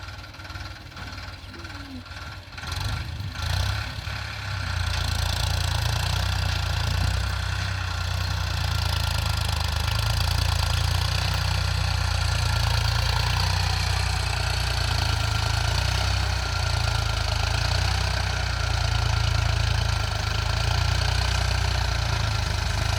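Ford 3600 tractor's three-cylinder engine running steadily with a low, even pulse. It is fainter for the first few seconds, with a few short knocks, then becomes loud and steady after about four seconds.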